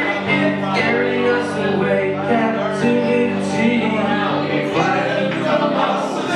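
Live band playing a reggae song: electric guitar, electric bass and drum kit, with male singing over it.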